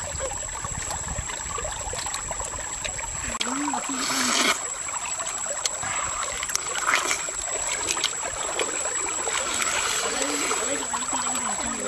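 Stream water running and trickling, with a brief splash about four seconds in.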